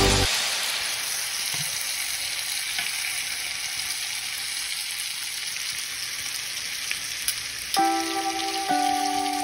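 Two New York strip steaks frying in hot oil in a skillet, a steady sizzle. Music comes in near the end.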